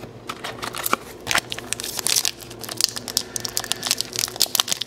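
Foil Pokémon card booster pack wrappers crinkling irregularly as they are handled and opened.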